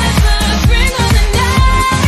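Upbeat dance-pop music with a steady thumping beat and a sliding melody line on top.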